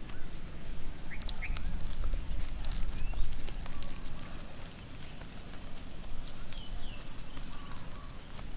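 A low, uneven rumble with soft handling sounds of hands squeezing and kneading a damp mash of potato and shredded chicken, and a few short bird chirps.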